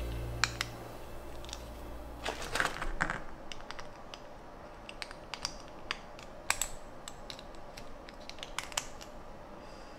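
Light clicks and plastic crinkling as a small die-cast toy jet and its clear plastic bag are handled. There is a short run of crinkling about two to three seconds in, then scattered single clicks.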